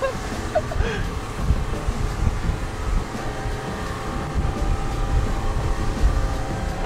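Wind buffeting the microphone in a strong, uneven low rumble, with faint steady tones coming in about halfway through.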